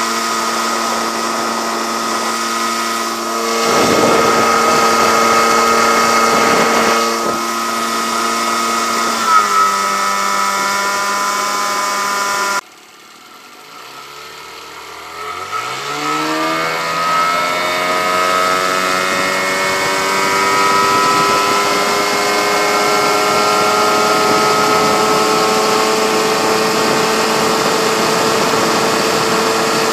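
Johnson 15 hp two-stroke outboard motor running steadily. About halfway through the sound cuts and comes back quieter, then the motor throttles up, its pitch climbing over several seconds, and holds a steady high pitch at full throttle.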